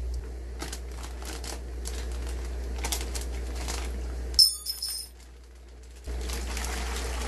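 Plastic fish-shipping bag handled with light crinkles and rustles over a steady low hum, with a sharp clink that rings briefly about four and a half seconds in.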